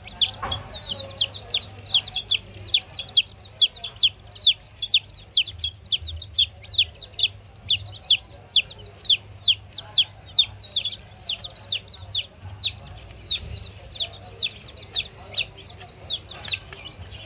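Baby chicks peeping without pause: short, high calls, each falling in pitch, about three a second.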